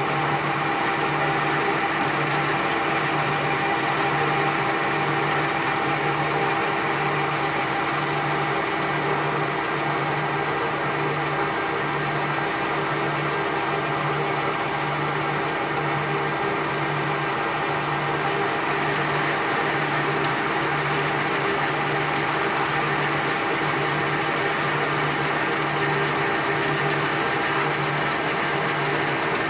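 A machine running steadily, with a low hum that pulses about once a second.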